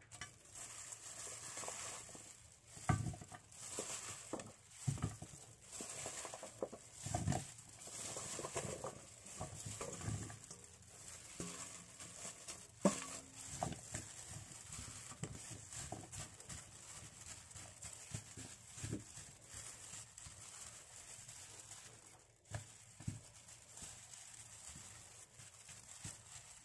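Chunks of raw potato, carrot and green beans set down one by one in a glass baking dish: irregular soft knocks and taps, with the rustle of a plastic food glove, over a steady faint hiss.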